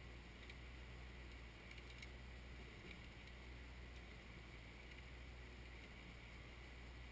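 Faint, steady running of a Kioti 3054 compact tractor's diesel engine, with a few light ticks.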